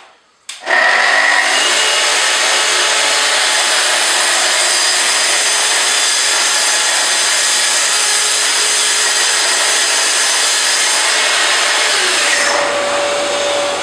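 Festool TS55R plunge track saw starting up about half a second in and cutting steadily through a sheet of melamine-faced chipboard. Near the end the cutting noise drops away, leaving the motor's running whine.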